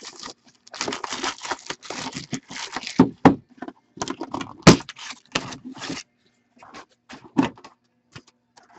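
Plastic wrap being torn and crinkled off a trading-card tin, mixed with sharp clicks and knocks as the tin is handled and opened, one knock about halfway through standing out. The rustling stops about two-thirds of the way in, leaving only a few scattered clicks.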